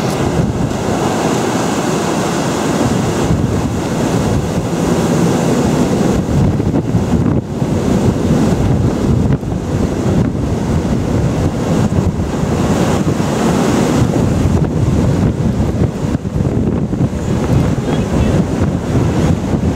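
Strong wind buffeting the microphone, loud and steady with constant low gusting, over the rush of breaking sea and foam streaming along the hull of a square-rigged sailing ship.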